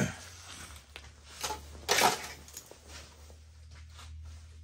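Handling noise as cut plastic zip ties are swept and scraped off a plywood board: a sharp clack at the start and rustling scrapes about one and a half and two seconds in, over a steady low hum.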